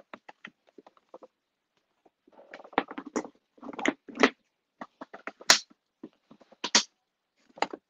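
Irregular clicks, taps and rustles of handling as beetles are put back into their enclosures. The clicks are sparse at first, come in busier clusters in the middle, and end with a few single sharp clicks.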